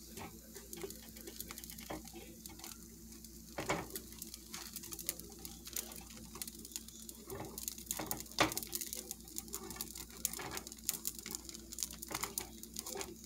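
Slices of bread toasting in a nonstick frying pan: frequent small crackles, with a few louder taps as the slices are turned over by hand.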